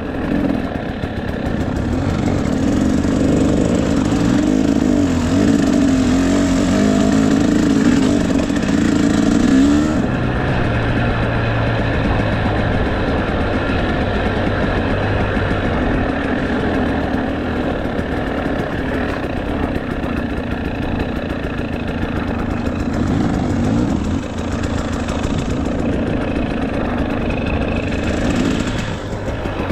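KTM 300 EXC two-stroke enduro motorcycle engine with a Pro Circuit exhaust being ridden off-road. Its note rises and falls with the throttle, drops to a lower, steadier note for several seconds about a third of the way through, then picks up and varies again.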